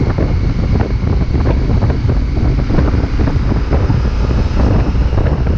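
Heavy wind buffeting on the microphone over a low, steady rumble of a vehicle on the move, typical of a camera mounted on a motorcycle being ridden.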